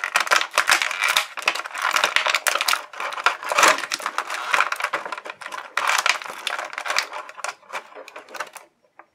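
Clear plastic blister tray crinkling and crackling as an action figure is worked loose from it by hand. The crackle is dense and continuous, thinning out near the end.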